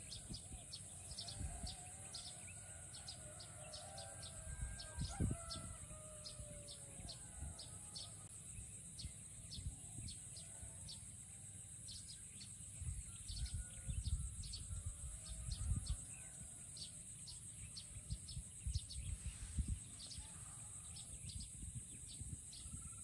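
Roosters crowing faintly, with long curved calls in the first several seconds and again near the end, over many short high bird chirps and a steady high-pitched drone. Gusts of wind rumble on the microphone.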